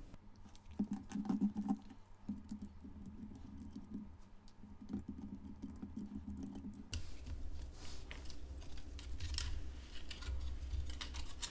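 Light, irregular clicks and taps of small plastic mouse parts and a circuit board being handled and pried at while the board is worked out of the opened vertical mouse shell. There is more rubbing and handling noise from about seven seconds in.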